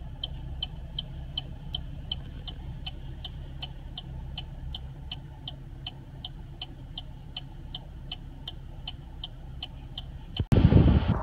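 A car's turn-signal indicator ticking evenly, about three clicks a second, over the low, steady rumble of the car's engine and cabin. It is cut off near the end by a louder rush of low noise.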